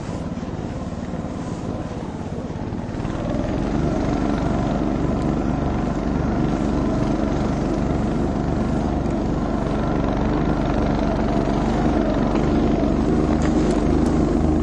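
Husky mini snowmobile's small engine running steadily under load, getting louder about three seconds in as it is given more throttle.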